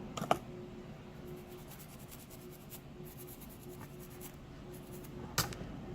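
Light rapid scratching of a small hand tool on the repaired flex cable and board, with a sharp tap near the start and another near the end, over a faint steady hum.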